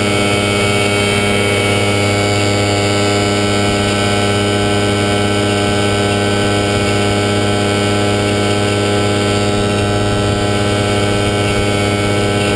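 Falcon XP ultralight's engine running steadily in flight, a constant drone with a low pitch that holds level, under a hiss of rushing air.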